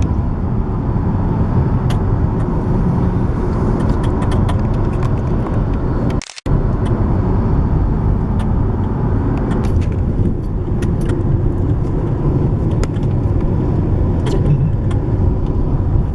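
Steady road and engine rumble heard inside a moving car's cabin, with a brief dropout about six seconds in.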